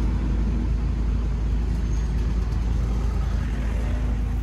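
An engine running steadily, with a constant low rumble and hum.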